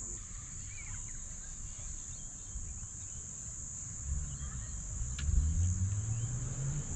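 Insects trilling on one steady high-pitched note. About halfway through, a low hum with a steady pitch comes in under it, and a few faint short chirps are heard.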